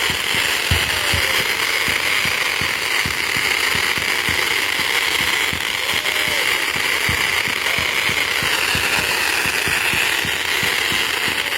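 Consumer fireworks crackling and popping in a dense, continuous barrage, many sharp reports a second with a steady crackling hiss under them.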